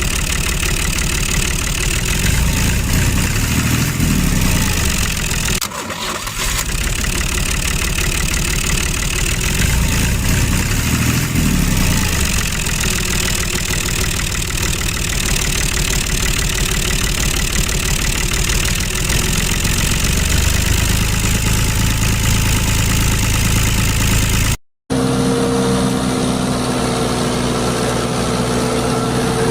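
A small engine running with a fast, even chugging that swells now and then. Near the end it cuts off abruptly and gives way to a steadier motor hum with a few held tones.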